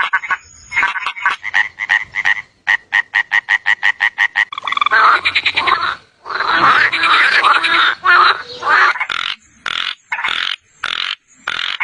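Frogs croaking in rapid trains of pulses, several a second. In the middle the calls run together into a dense, continuous stretch with one short break, then split into short separate bursts near the end.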